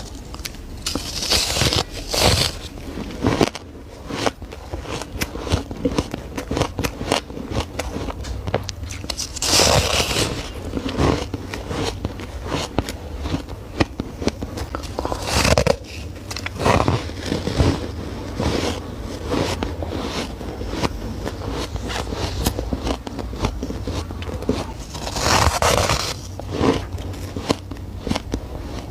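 Ice being bitten and chewed close to the microphone: a steady run of crunches and crackles, with louder, sharper bites near the start, about ten seconds in, and near the end.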